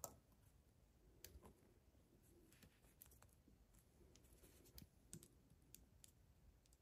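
Faint, scattered light clicks of small carburetor parts being handled as the metering lever (rocker arm) is fitted under the head of the metering needle.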